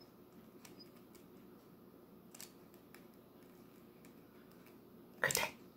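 Faint scattered clicks and rustles from a cat biting and pawing at a small plush toy chick. A person's voice cuts in briefly near the end.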